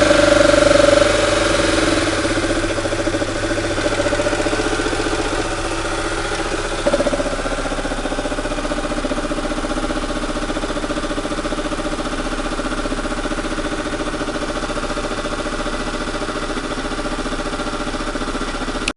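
Car engine with an RL4F02A four-speed automatic gearbox, its revs falling back to idle in the first couple of seconds and then idling steadily, with one short louder bump about seven seconds in. It is running to show a knock that the owner hears in the gearbox.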